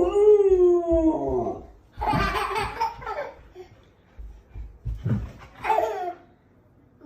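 A baby laughing in three bursts: a long laugh at the start, then two shorter ones about two and five seconds in.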